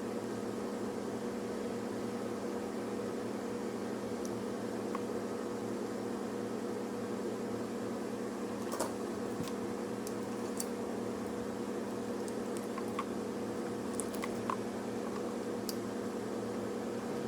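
Steady mechanical hum with fixed tones, like a small electric motor or fan running, with a few faint clicks and taps scattered over it.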